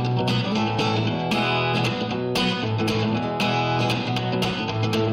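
Background music: a guitar intro with a quick, steady strumming rhythm and a bass line, no vocals.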